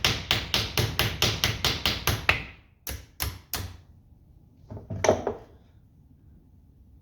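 A hammer tapping rapidly on a metal part, about five blows a second. Three more taps follow after a short break, then one heavier knock about five seconds in; this is typical of freeing a part stuck fast in a tractor housing.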